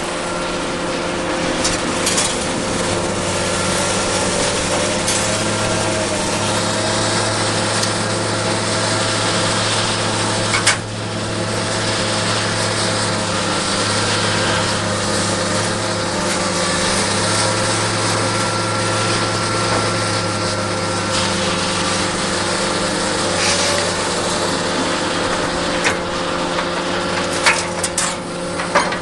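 Komatsu hydraulic excavator's diesel engine running steadily as it works a hydraulic grapple, with a steady hum and held tones. Sharp clanks of scrap metal being handled, once about eleven seconds in and several near the end.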